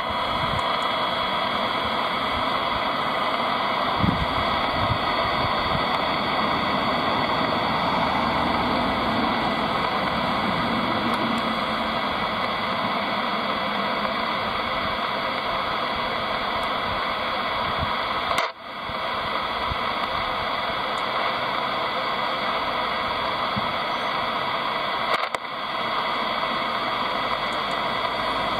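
Steady hiss of static from a President Lincoln ham radio receiver, with a few low thumps about four seconds in. The hiss cuts out briefly twice, about two-thirds of the way through and again near the end.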